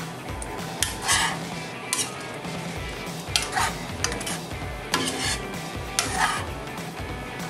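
A spatula scraping and knocking against a stainless steel pan while stirring a thick, wet curry, in about five separate strokes roughly a second apart. Background music with a steady beat runs underneath.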